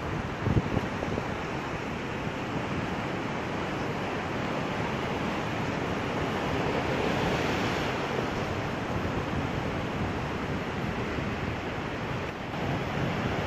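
Ocean surf washing onto a sandy beach, a steady rushing that swells a little about halfway through, with wind buffeting the microphone in low thumps near the start.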